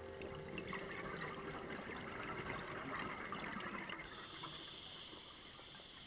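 Underwater sound picked up by a dive camera: a bubbling, crackling water noise that thins out over the last couple of seconds.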